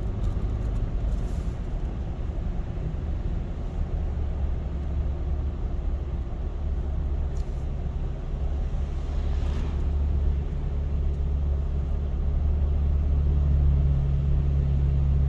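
Car driving, heard from inside the cabin: a steady low rumble of engine and road noise, growing a little louder with an added hum about two seconds before the end.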